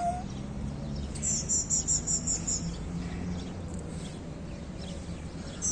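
A small bird chirping in a quick run of about seven short, high notes about a second in, and again briefly at the end, over a steady outdoor background. A cat's meow ends right at the start.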